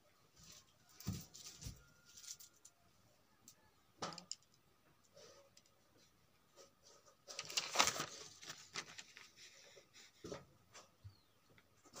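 Faint handling sounds of a paper notebook: scattered light knocks and rustles, and a longer rustle of paper a little under two-thirds of the way through as a page is turned.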